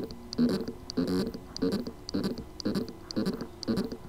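WD Red 8 TB (WD80EFAX) hard drive with loose spindle-motor contacts on its circuit board, making a repeating pulsed buzz about twice a second with faint ticks. The sound is the sign of a motor that can spin but cannot reach full speed because of the loose contacts.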